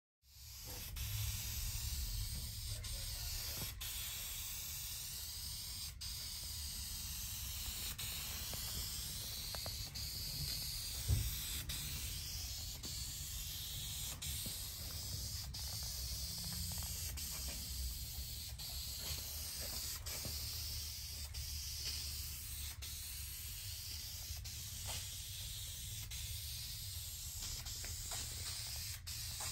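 Aerosol spray can hissing steadily as it sprays a clear gloss finish onto a hardwood tabletop, over a low rumble. A single short thump comes about eleven seconds in.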